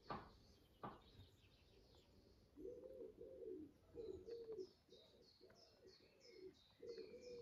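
Faint cooing of a dove: a run of short rising-and-falling coos, about three a second, starting a couple of seconds in, over a small bird chirping steadily at a high pitch. Two light clicks in the first second.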